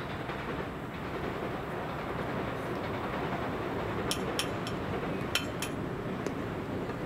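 A passing train's steady rumble, building slightly at first, with a few sharp clicks about four to six seconds in.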